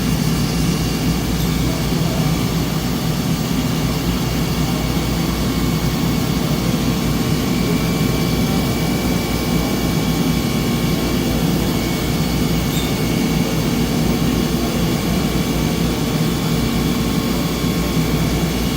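Traub TNL 26 CNC Swiss-type lathe running its warm-up program, moving all its axes: a steady machine hum with several held tones and no distinct knocks or cuts.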